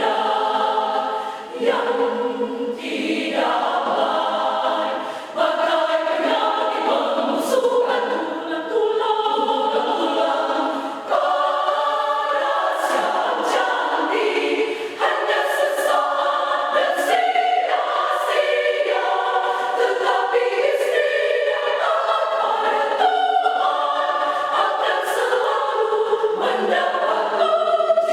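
A small women's church choir singing a hymn in several voice parts, with sustained chords that change every second or two.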